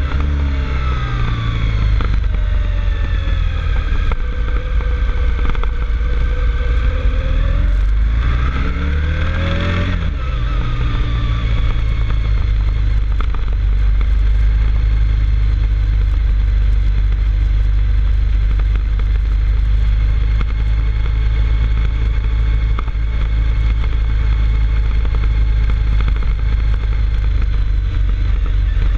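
Motorcycle engine pulling up a mountain road: the revs drop over the first few seconds, climb sharply about eight to ten seconds in as it accelerates, then hold steady at cruising speed, with a constant low rumble underneath.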